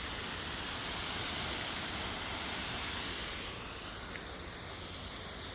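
Steady hiss of water spraying into the air as a fine artificial rain.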